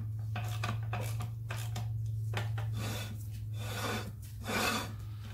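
Land Rover Defender transmission handbrake drum turned by hand, its newly fitted parking-brake shoes rubbing inside it in a series of uneven scraping rasps, loudest a little after four seconds in. The shoes are adjusted just to the point of starting to grab.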